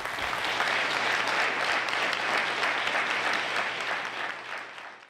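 Audience applauding, a dense steady clapping that fades out near the end.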